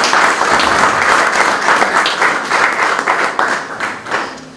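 A small group of people applauding with rapid, dense clapping that fades out near the end.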